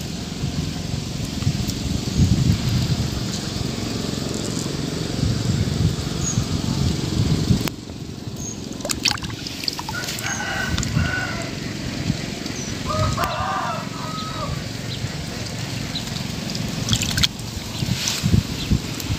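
Shallow pond water splashing and sloshing as a hand works through it, over a low rumble. About halfway through, a rooster crows twice.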